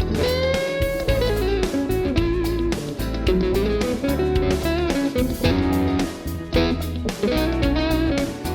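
PRS McCarty 594 electric guitar playing lead: a note bent up and held about half a second in, then quick melodic runs, over a steady bass part underneath.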